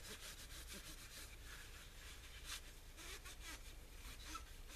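Faint rubbing of a blue paper shop towel wiped along a small coiled wire spring from a Coleman liquid-fuel stove, with a few light scratchy strokes.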